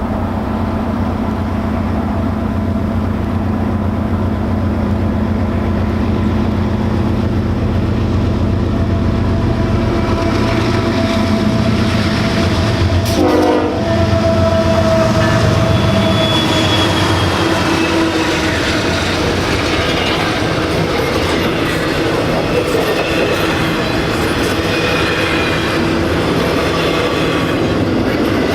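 Two GE diesel locomotives, an ES44AC leading and a D9-44CW trailing, rumble past at track speed. About halfway through their engine note gives way to the intermodal cars rolling by, with wheel clatter and thin, high flange squeals.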